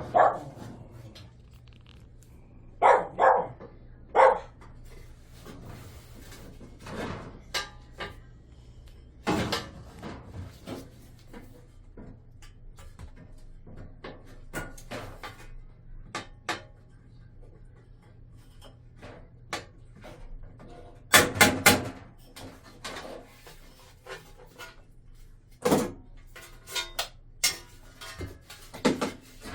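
Irregular knocks, clanks and clicks of tools on a drum washing machine being taken apart for a bearing replacement, loudest in a quick run of strokes about 21 seconds in. A few short pitched cries come near the start, over a faint steady hum.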